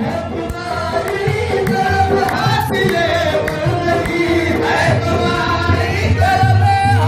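Qawwali: a group of voices singing Sufi devotional verse over instrumental accompaniment, the melody wavering and gliding.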